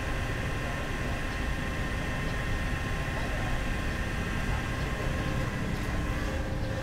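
Steady machinery noise: a low rumble with a few faint, steady whines above it.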